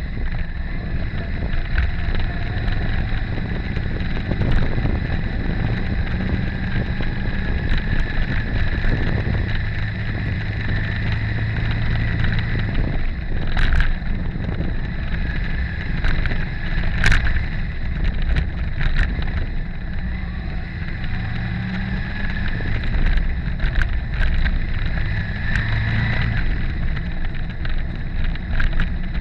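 Motorcycle engine running at low, steady revs on a dirt track, its pitch rising and falling a little, with wind noise on the microphone and scattered sharp knocks from the bumpy surface.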